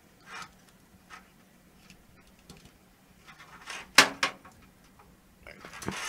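Plastic Molex power connectors and their wires handled by hand: a few faint rattles and knocks, with one sharp plastic click about four seconds in.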